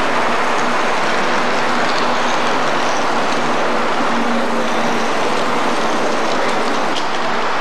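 O scale model freight train rolling along the layout track: a steady rolling noise of wheels on rail, with a faint hum.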